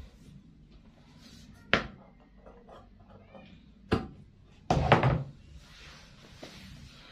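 Handling noise from fabric and tools on a cutting table, with a few sharp knocks: one about two seconds in, another about four seconds in, and a louder cluster of knocks around five seconds.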